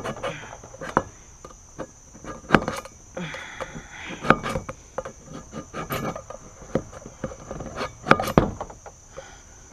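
A steel knife scraping and knocking at a tin can in irregular strokes, the spine and tip of the blade working at the lid to cut it open. A steady high trill of crickets runs underneath.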